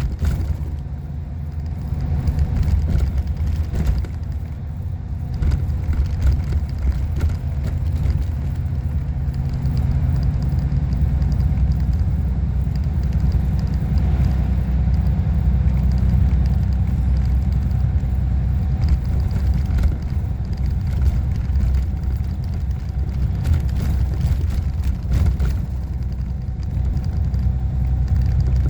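Steady low rumble of a motor vehicle running, with no clear changes.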